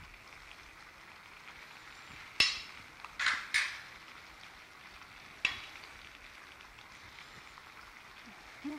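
Chop suey noodles being served from a stainless steel pan into a ceramic bowl: a metal serving utensil clinks and scrapes against the pan and bowl a few times over a faint, steady sizzling hiss from the pan on the burner.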